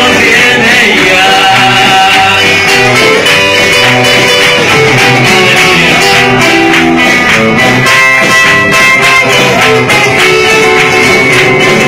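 Live church worship band playing a praise song, led by strummed guitar, loud and continuous.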